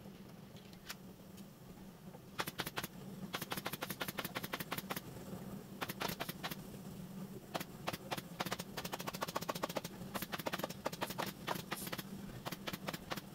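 Pneumatic upholstery staple gun firing in quick runs of sharp shots, starting about two seconds in, over a steady low hum.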